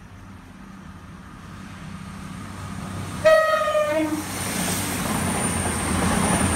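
CrossCountry Class 220 Voyager diesel multiple unit approaching and passing at speed. A short two-note horn blast, a high note then a brief lower one, sounds about three seconds in. After it the engine and wheel noise swell to a loud rush with a thin high whine.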